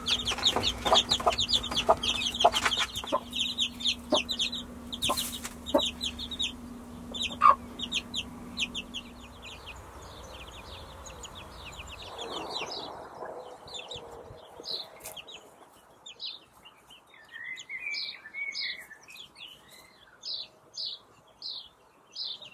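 Young chickens' chicks peeping rapidly and without pause, with a hen clucking now and then. After about ten seconds this gives way to quieter, sparser bird chirps and a short warbling song.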